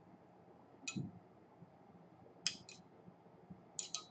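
Light, sharp taps on an oscilloscope's BNC connector, a single tap with a dull knock about a second in, then two quick pairs of clicks.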